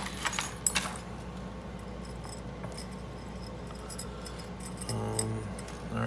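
Metal clinking of lock picks and small padlocks being handled on a cluttered table, sharpest in the first second, then faint light ticks of a pick working inside a small padlock. A brief low voiced hum about five seconds in.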